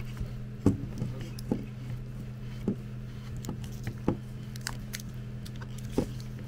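Scattered light clicks and taps from handling a power cable as it is pushed through the plastic motor housing of a car tyre compressor, over a steady low hum in the background.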